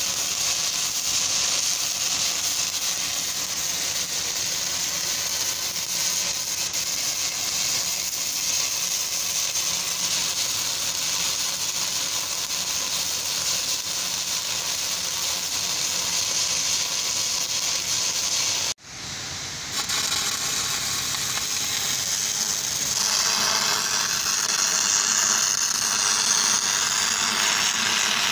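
Stick-welding arc from an E6010 electrode running the root pass of a pipe butt joint: a steady harsh crackling hiss. It breaks off for a moment about two-thirds of the way through, then resumes, a little louder and hissier over the last few seconds.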